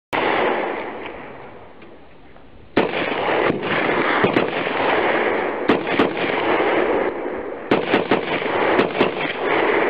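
Intro sound effect of gunfire and explosions: a bang that dies away over about two seconds, then a continuous rumbling din with many sharp cracks.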